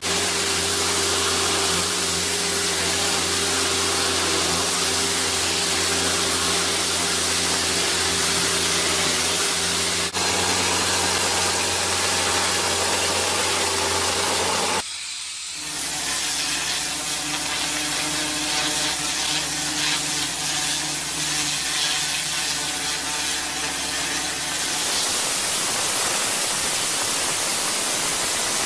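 Compact tractor's engine running steadily while its front-mounted rotary wire/bristle weed brush scrubs paving stones, a hiss over a steady engine hum. About 25 seconds in this gives way to the even hiss of a high-pressure water jet spraying from a nozzle.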